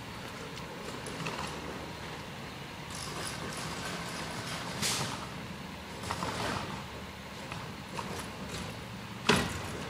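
Garbage truck at work: its engine runs steadily, with several short hissing and clattering sounds. A sharp knock near the end is the loudest sound.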